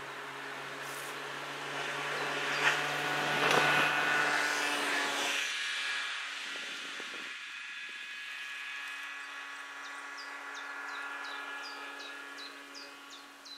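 A motor vehicle's engine running steadily, growing louder about three to four seconds in and then fading to a faint hum. Near the end a bird chirps repeatedly, with short, high, falling notes.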